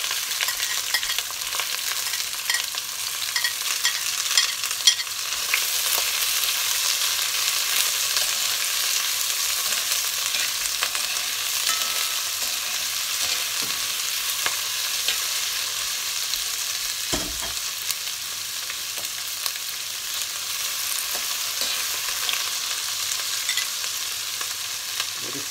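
Chopped onion, sweet peppers and spring onion sizzling and frying in hot oil in an aluminium pot, a steady hiss. Small clicks come from a spoon stirring the vegetables against the pot.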